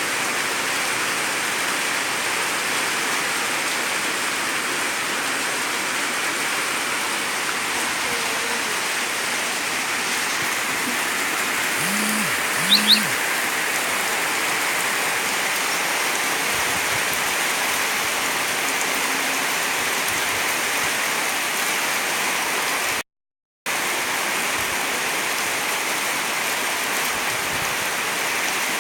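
Heavy rain pouring down, a steady dense hiss. About halfway through, two short pitched sounds rise above it, and near the end the sound cuts out completely for about half a second.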